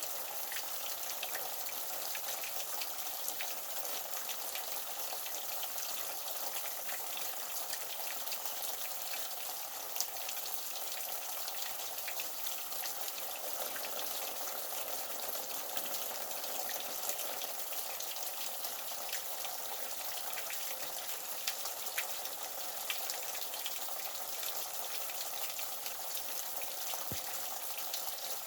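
Water running and splashing steadily, a rain-like patter of many small drops.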